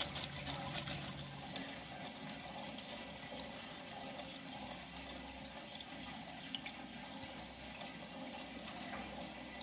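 Gasoline pouring in a steady stream from a metal safety can into a plastic funnel, running down into a truck's fuel tank.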